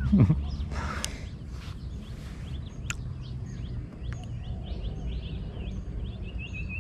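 Small birds chirping repeatedly over a steady low rumble, with a high wavering note setting in near the end and one sharp click about three seconds in.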